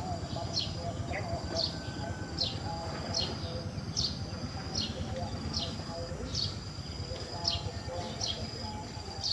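A small bird repeating a short, high, falling chirp, a little more than once a second and evenly spaced, over a steady thin high-pitched tone and a low rumble.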